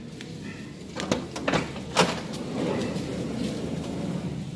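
Honda Freed's power sliding door opened from the key fob: a few sharp clicks and a clunk as the lock and latch release, then the door motor running steadily as the door slides open.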